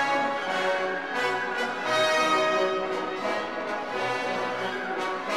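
Orchestral background music with sustained brass notes.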